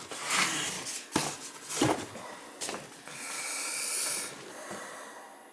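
Handling noise from a cardboard faucet box: a few sharp knocks and scrapes in the first three seconds, then a longer hissing rub lasting about a second.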